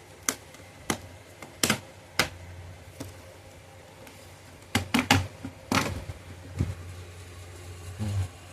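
Plastic snap clips of an Axioo Hype 5 laptop's bottom cover clicking loose one after another as the cover is pried off by fingernail: about nine short, sharp clicks at irregular intervals, several in quick succession near the middle.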